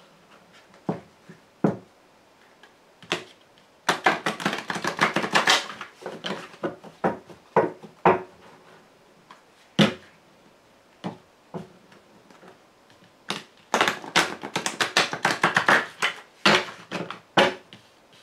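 A deck of tarot cards being shuffled by hand: two long flurries of rapid card clicks, one about four seconds in and one from about thirteen to seventeen seconds in, with single card snaps between.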